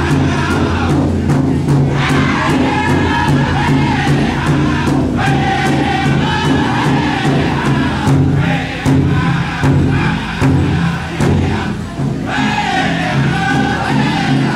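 Powwow drum group singing a grand entry song: several voices in unison over a steady, even beat on a large drum, with the singing breaking off briefly and starting again.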